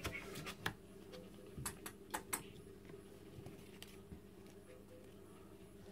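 Faint scratching and clicking of kittens' claws on newspaper and cardboard as they tussle in a box. A few sharp clicks come in the first two and a half seconds, then it goes quieter.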